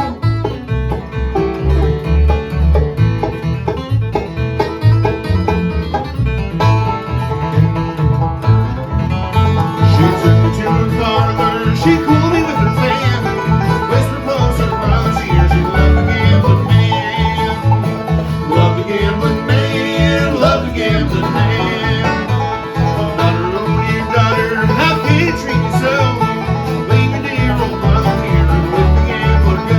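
Live bluegrass band playing an instrumental break: fast banjo picking over acoustic guitar, with bass notes pulsing steadily on the beat.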